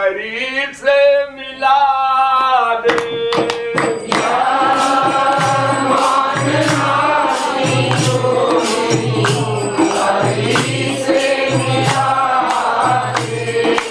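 Devotional singing of a Hindi couplet: a single voice sings the line for the first few seconds, then about three seconds in a group joins in chorus, with jingling hand percussion and steady drum beats.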